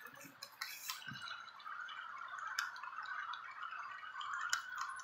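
Model freight train of covered hopper cars rolling past on its track: a steady faint whir with scattered light clicks.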